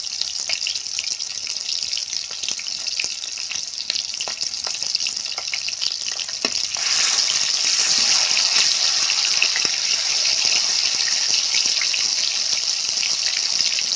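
Chicken drumsticks deep-frying in hot oil in a wok: a steady sizzle with scattered crackles. It gets louder about halfway through, as a steel ladle turns the pieces.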